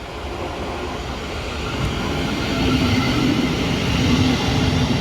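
Thameslink Class 700 electric multiple unit running into the platform, a steady hum and whine that grows louder over the last few seconds.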